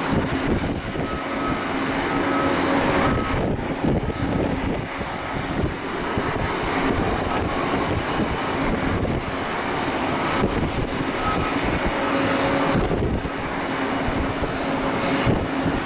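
Boeing 787-8 jet engines running at taxi idle: a steady rumble with a faint tone that fades in and out.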